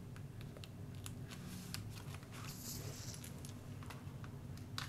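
Faint paper handling: cardstock pages and pockets rustling, with scattered light clicks and a brief soft scratchy rustle about two and a half seconds in.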